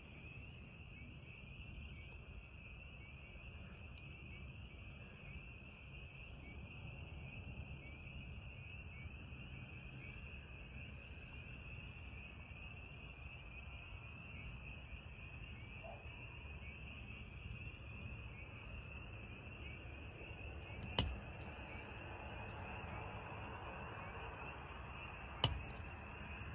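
Steady high chorus of night insects. Two sharp clicks near the end, about four and a half seconds apart, are the loudest sounds.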